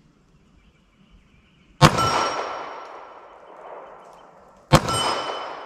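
Two 9mm pistol shots about three seconds apart, each followed by a 10-inch steel gong ringing from the hit, its clear tones fading over a couple of seconds.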